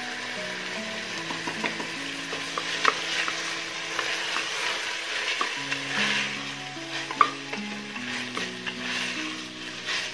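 Washed rice and peas sizzling in hot ghee in a stainless steel pressure cooker, stirred with a wooden spatula that scrapes and clicks against the pot. There is a sharper knock about three seconds in and another about seven seconds in. Soft instrumental music plays underneath.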